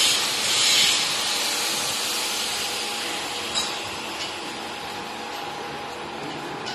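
Power grinder grinding metal in a locomotive workshop: a dense, harsh rushing noise, loudest in the first second and slowly fading.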